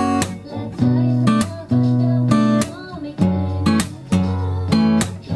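Guitar chords strummed in a steady song rhythm, a sharp strum every half second to a second with each chord left ringing between.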